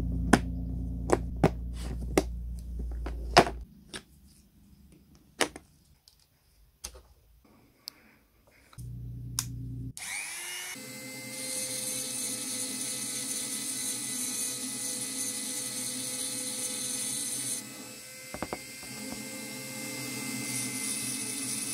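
A few scattered clicks and knocks, then about halfway through a corded electric rotary tool is switched on: its motor spins up with a short rising whine and runs steadily. Near the end its bit is grinding on cast iron.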